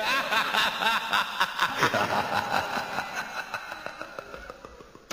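Background music with a steady beat, fading out over the last few seconds. A voice chuckles over it in the first couple of seconds.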